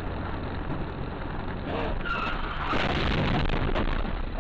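Car cabin road noise with a steady low hum, then, about two and a half seconds in, a loud rushing, scraping noise lasting over a second as the car skids off the road onto the grass verge.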